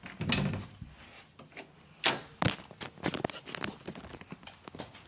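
Irregular rubbing, rustling and knocks of a hand-held phone being carried about, with footsteps; the sharpest knock comes about two seconds in.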